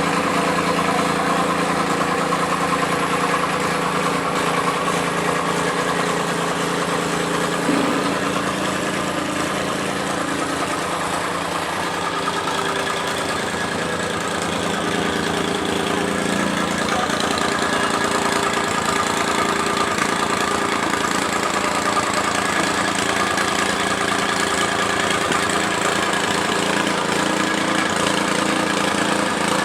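Tamping rammer's small engine running steadily while it compacts fill soil, with a slight change in its note about 12 seconds in.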